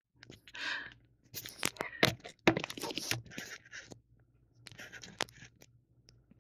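Handling noise as the camera is moved and reframed: short irregular bursts of rustling and scraping with sharp clicks and taps.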